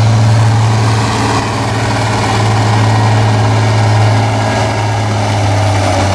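Turbocharged International Harvester tractor's diesel engine idling steadily with a low drone, hitched to the pulling sled.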